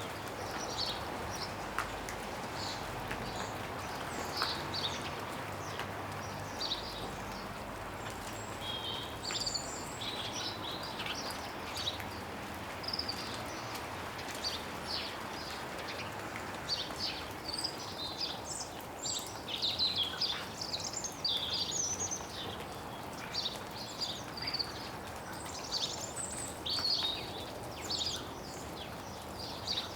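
Small garden birds chirping close up among tree branches, with short high chirps that come sparsely at first and grow much busier about halfway through. Snowmelt drips from the branches over a steady background hiss.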